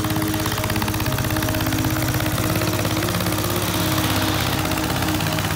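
Single-cylinder diesel engine of a homemade boat tractor running steadily under load with a fast, even firing beat as the tractor is driven through paddy-field mud.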